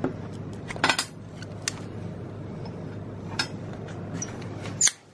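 Metal parts clinking and tapping against each other several times, over a steady low machine hum that cuts off suddenly near the end.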